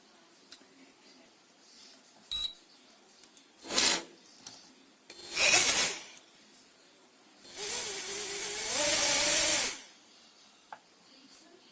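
Short clicks and rasping handling noises from tool work, then a small electric motor whirring for about two seconds, its pitch stepping up partway before it stops.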